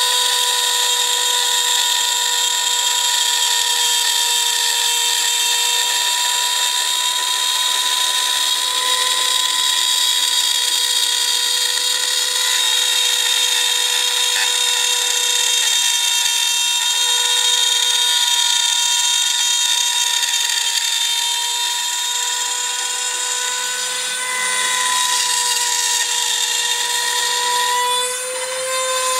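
Shapeoko 2 CNC router milling acrylic sheet with a rotary-tool spindle: a steady high-pitched motor whine, with the stepper motors humming faintly as the gantry moves. Near the end the whine dips briefly in pitch and level.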